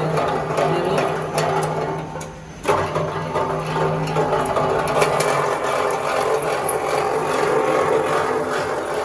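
Four-roller ACSR wire stripping machine running, a steady motor hum with fast clattering and clicking as the rollers pull the conductor through and strip the aluminium strands off the steel core. The noise drops briefly about two seconds in, then picks up again.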